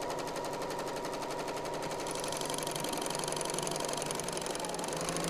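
Serger (overlocker) running at a steady speed, sewing a three-thread overlock seam through layered cotton quilt fabric: a fast, even mechanical rattle of needle and loopers.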